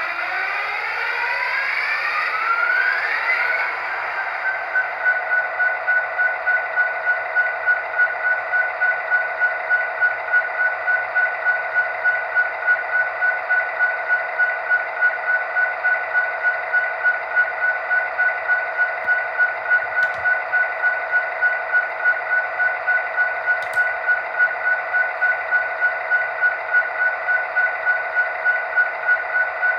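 Sound effects from the DCC sound decoder of a Fox Valley GP60 model diesel locomotive, played through its small speaker. For the first few seconds the diesel engine sound revs up with a rising whine. From about four seconds in, the locomotive bell rings steadily, about twice a second, over the engine sound.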